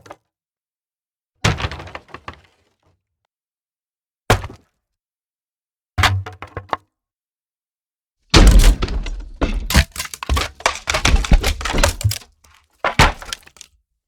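A series of separate wood breaking and cracking effects with silence between them: a crack about a second and a half in, two short snaps around four and six seconds, then a dense run of cracks and crashes lasting about four seconds, and one more short crack near the end.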